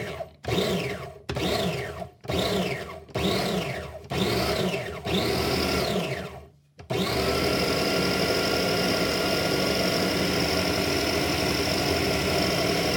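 Food processor motor running in about six short pulses, roughly one a second, each spinning up and winding down. From about seven seconds in it runs steadily, chopping peeled edamame and milk into a paste.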